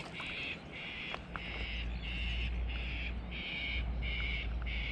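A bird calling in a run of harsh, evenly repeated notes, about two a second, with a low rumble underneath through the middle.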